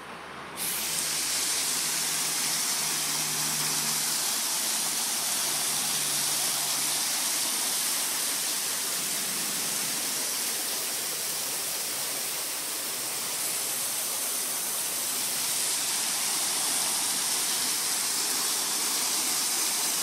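Waterfall dropping off a limestone ridge into a sinkhole: a steady, loud rush of falling water that jumps up in level about half a second in.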